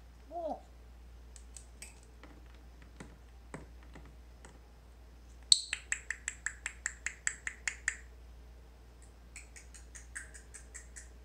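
African grey parrot making rapid sharp clicks, about six a second for a couple of seconds, then a second, softer run of clicks near the end.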